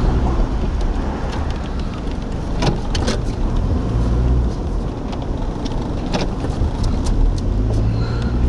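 Car driving at speed, heard from inside: a steady low road and engine rumble with wind noise, and a few scattered sharp clicks.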